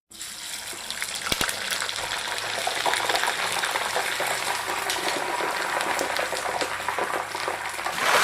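Chicken frying in hot oil: a steady sizzle with lots of small crackles and pops.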